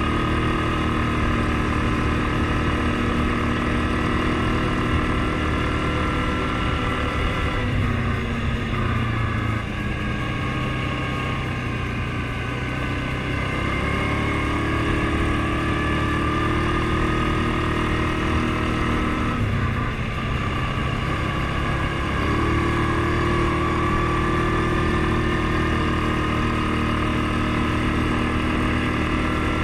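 Suzuki KingQuad 750 ATV's single-cylinder engine running at riding speed over wind noise on the microphone. The engine note eases off about 8 seconds in and again about 20 seconds in, and picks back up each time.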